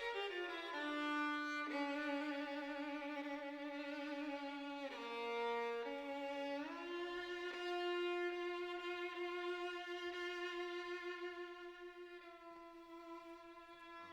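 Slow, relaxing background music on a solo violin: a few sustained notes, then one long held note that fades away near the end.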